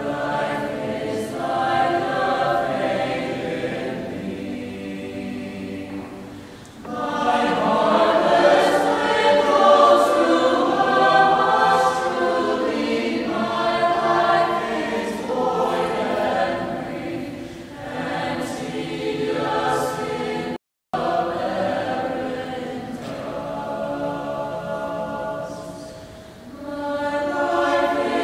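Mixed choir of men's and women's voices singing a sacred choral piece, held chords in several parts moving phrase by phrase. The singing falls back softly, then swells louder about a quarter of the way in, and the sound cuts out for an instant about three-quarters of the way through.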